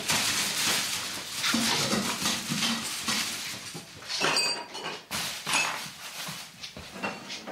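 Someone rummaging through a kitchen cupboard: packets and containers rustling, with dishes clinking and clattering, and a brief high squeak a little past halfway.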